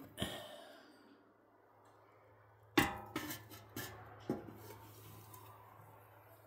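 Small metal ash shovel knocking against a galvanized steel ash bucket as ash is tipped in from a wood stove: one sharp clank a little under three seconds in, then three lighter knocks, with a faint low steady hum underneath.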